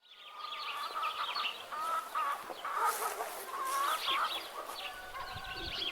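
A flock of chickens clucking, many short calls overlapping, with higher short chirps among them; the sound fades in at the start.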